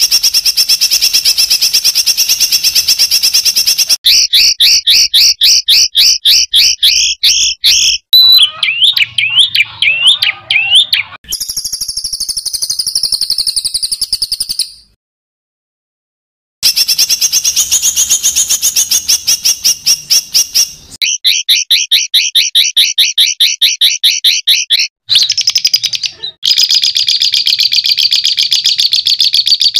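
Songbird masteran recording: fast trills of rapidly repeated harsh notes, the 'tembakan kasar' used to tutor cage songbirds, in spliced segments that start and stop abruptly, with a short silent gap about halfway through.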